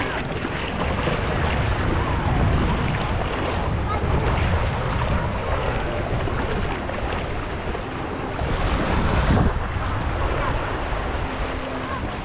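Sea waves washing on the shore, with wind buffeting the microphone in a steady low rumble.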